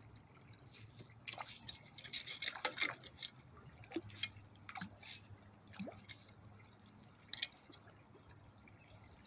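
A small hand rake scraping and splashing at a storm-drain grate in shallow floodwater, clearing clogged debris: a run of irregular scrapes and splashes, busiest about three seconds in, with a few single splashes later.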